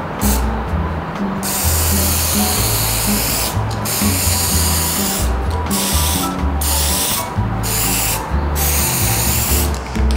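Aerosol spray paint can hissing in several bursts of one to two seconds each, with short pauses between, over background music.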